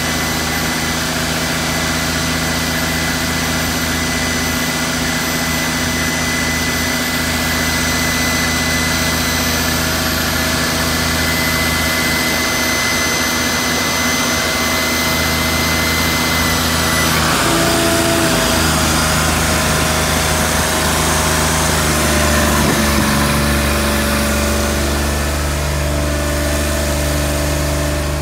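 A 2005 GMC C7500 bucket truck's engine runs steadily, with a steady high whine from the hydraulics working the raised dump bed. About 17 seconds in the whine stops and the engine note shifts, then settles lower.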